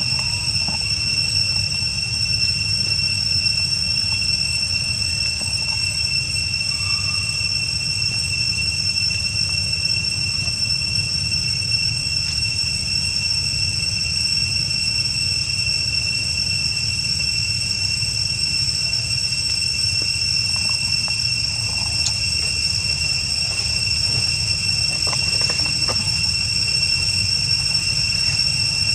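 Steady outdoor drone: a continuous high-pitched whine held at one pitch, over a constant low rumble.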